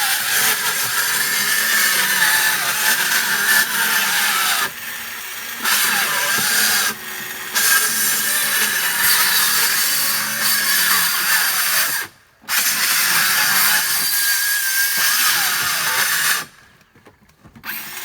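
Circular saw cutting into a wooden wall in long passes. It eases off briefly around five and seven seconds in, stops for a moment about twelve seconds in, and falls quiet near the end.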